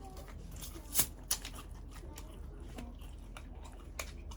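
A few sharp clicks or taps, the loudest about a second in, another just after it and one near the end, over a steady low hum.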